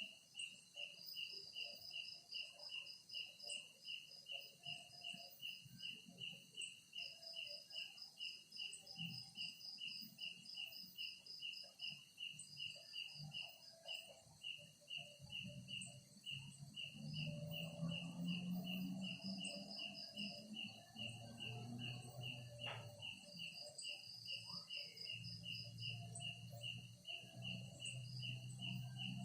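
Night insects chirping: one chirp repeats steadily about three times a second, with bursts of faster, higher trilling, over a constant high-pitched insect drone. A low hum comes in about halfway through.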